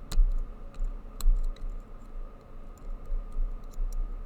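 Lock-picking tools working the pins of a Master Lock Street Cuff bicycle lock: small, irregular metallic clicks and taps, two of them sharper about a quarter second and a second and a quarter in, over a low steady hum.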